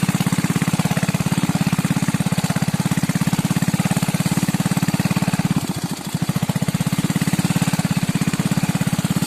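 Motor grandong, a stripped-down farm motorcycle, riding along with its engine running steadily in a fast, even firing beat; the engine eases off briefly about six seconds in.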